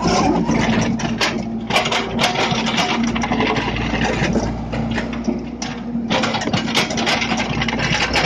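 A heavy machine's diesel engine runs close by with a steady hum, mixed with scattered clanks and knocks.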